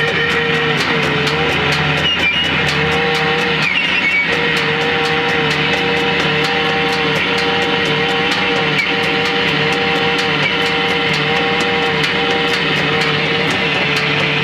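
Noise music played live: a loud distorted drone of wavering held tones over a dense roar, with a steady pulse of sharp clicks about three times a second.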